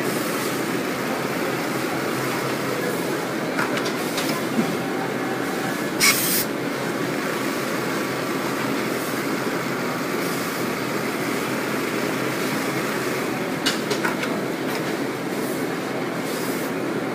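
JUITA NISHO computer-controlled industrial pattern sewing machine running, stitching quilting lines through fabric in a template: a steady mechanical running noise. A sharp click comes about six seconds in, with two fainter clicks near the end.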